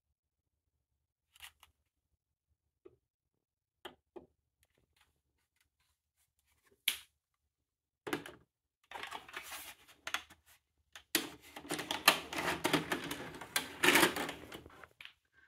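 Scattered single clicks, then from about nine seconds in several seconds of dense mechanical clicking and clattering, typical of the Toshiba SD-V296's VHS deck loading and threading a tape before play.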